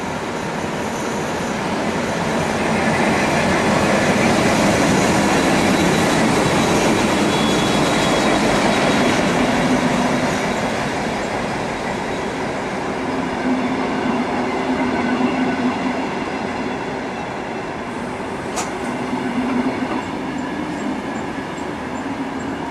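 VR Dr13 twin-engined diesel locomotive running under power as it moves a train of coaches past. It is loudest a few seconds in and then eases off, with a steady low engine note throughout and a single sharp click near the end.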